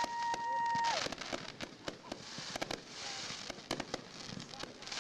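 Fireworks crackling and popping in quick, irregular cracks with hissing swells between them. A steady high whistle cuts off about a second in.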